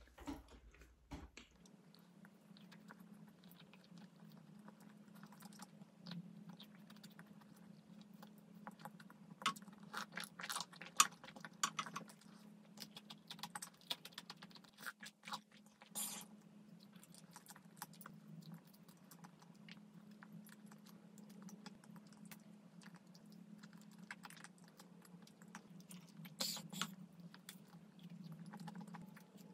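Close-up chewing of a chocolate-coated marshmallow: faint, scattered mouth clicks and smacks, thickest about ten seconds in and again near the end, over a faint steady low hum.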